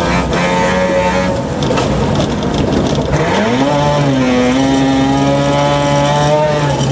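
Mazda RX2 rally car's rotary engine, heard from inside the car on a dirt road with road noise underneath. It holds steady revs, drops away about one and a half seconds in, then climbs quickly about three seconds in and holds high, steady revs under load.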